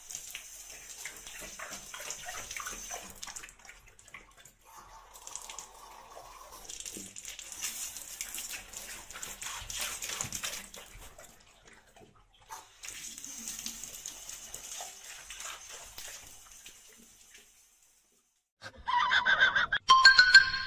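Water running from a wall tap and splashing onto a tiled shower floor, in three stretches with short breaks between them. Near the end, music starts.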